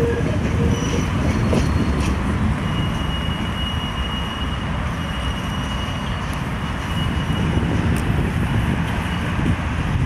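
Tram running along the rails with a steady low rumble. A faint, thin wheel squeal sounds in the middle for about four seconds.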